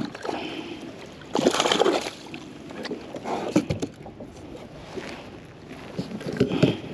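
A big porgy being brought aboard a plastic fishing kayak: splashing, with a loud burst of thrashing and rustling about a second and a half in, then a few knocks on the hull.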